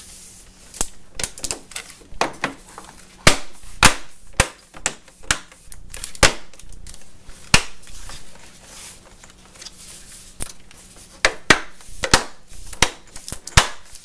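Plastic snap clips of a Lenovo S500Z all-in-one's back plate clicking into place as the plate is pressed on around its edge: a long run of sharp, irregular clicks.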